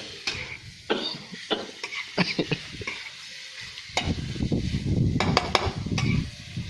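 Spicy pork stir-fry sizzling in a wok as a spatula scrapes and knocks against the pan, with repeated sharp clanks. The sizzling gets louder from about four seconds in.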